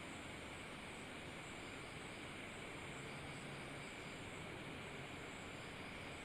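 Faint steady hiss with a thin, unbroken high-pitched drone, and a brief faint low hum about three seconds in.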